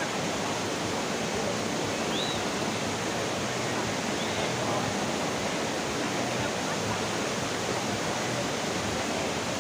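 Waterfall: falling water rushing steadily. Two faint, short high chirps sound over it, about two and four seconds in.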